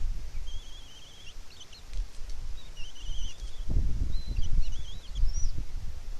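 Songbirds singing in short, warbling phrases, with irregular low rumbling thumps underneath that are loudest about four seconds in.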